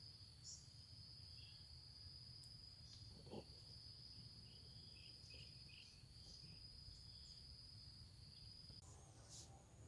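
Near silence with the faint, steady high-pitched chirring of crickets, its pitch stepping higher near the end, and one soft thump about three and a half seconds in.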